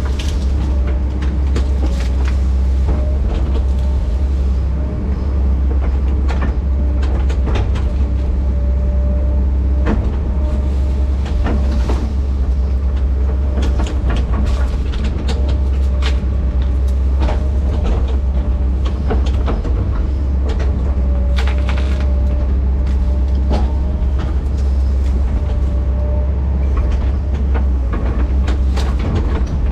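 Diesel engine of a heavy tracked machine running under load, a steady deep rumble, with frequent sharp clanks and cracks over it.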